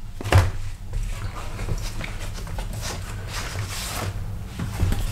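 Light handling noises: a sharp knock about half a second in, then soft scattered rustles and taps, over a steady low hum.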